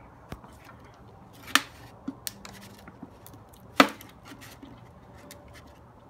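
Sharp clicks and knocks of an empty plastic 2-liter bottle being handled and set onto a plastic dish, with two louder knocks about a second and a half in and near four seconds in.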